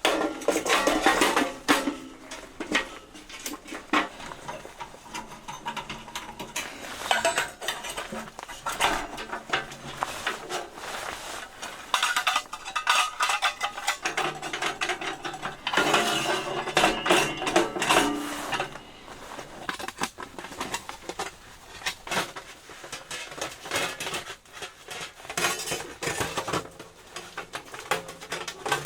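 Hard metal items clinking and clattering in irregular runs of sharp knocks, busiest near the start and in the middle, over background music.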